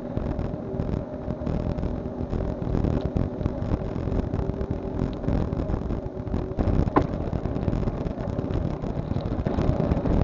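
Wind buffeting and rattle from a bicycle ride, picked up by a cheap handlebar-mounted action camera that wobbles in its mount: a steady rough rumble with a short chirp about seven seconds in.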